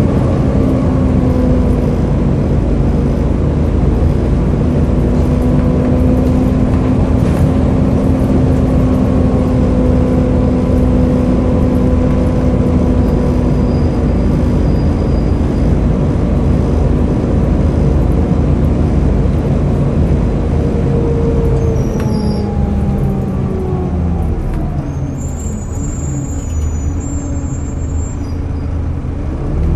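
Volvo B7TL double-decker bus's turbocharged diesel engine under way, with turbo whine and the hoover-like rush of its cooling fan. The note holds steady for about twenty seconds, then falls as the bus slows, and climbs again right at the end as it pulls away.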